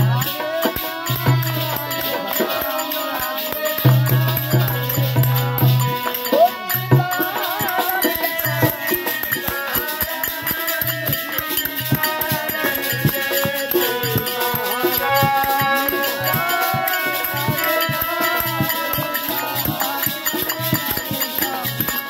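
Hindu devotional bhajan played live: a harmonium holding steady chords under group singing, with rattling hand percussion keeping the beat.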